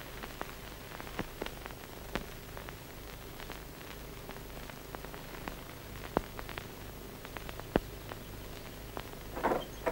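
Steady hiss of an old optical film soundtrack, dotted with scattered clicks and crackles. A few short, louder sounds come near the end.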